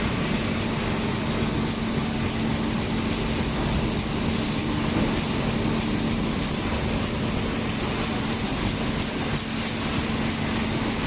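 Steady machinery running with a constant low hum and faint irregular ticking.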